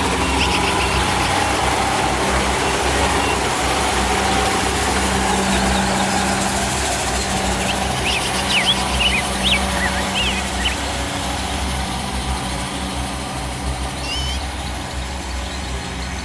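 Kubota DC-70 Plus combine harvester's diesel engine running steadily under load. Short bird chirps come through over it about halfway through and again near the end.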